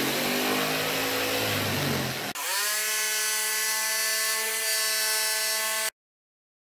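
Electric jigsaw cutting through 8-inch PVC pipe, the motor's pitch wavering under load. About two and a half seconds in, the sound changes abruptly to a steady motor whine, which cuts off suddenly near the end.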